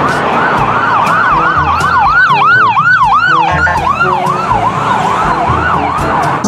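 Toy ambulance's electronic siren sound effect: a fast, repeating rise-and-fall wail at about three cycles a second. A second siren pattern overlaps it briefly in the middle.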